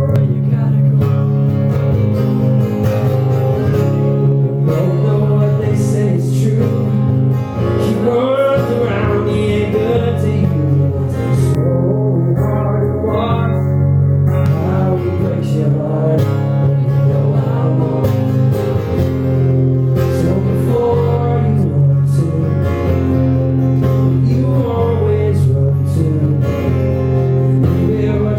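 Live performance of a pop-rock song with guitar and a male lead voice; the singing comes in about eight seconds in over the guitar.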